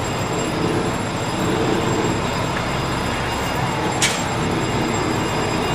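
Steady rumble of a fire truck's engine and road noise, heard riding on the open back of the slowly moving truck, with one sharp click about four seconds in.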